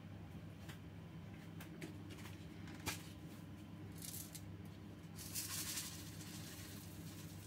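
Sesame seeds poured from a small container into a terracotta bowl: a short trickling hiss about four seconds in, then a longer one a second later.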